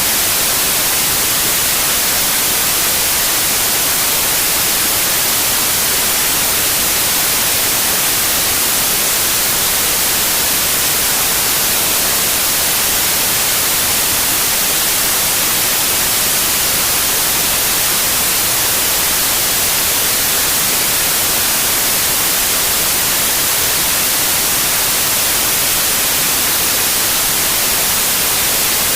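Steady white noise: an even, unchanging hiss, brightest in the high end, with no events in it.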